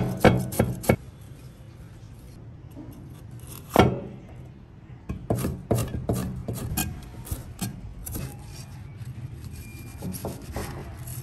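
Hand preparation of sea snails: a string of sharp clicks, knocks and scrapes from shells and utensils on a work surface, with one louder knock about four seconds in, over a steady low hum.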